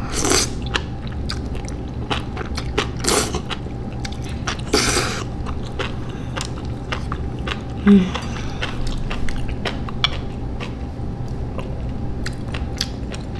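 Close-up slurping and chewing of saucy spicy ramen noodles: three long slurps in the first five seconds, then wet chewing clicks and smacks. A brief low hum about eight seconds in.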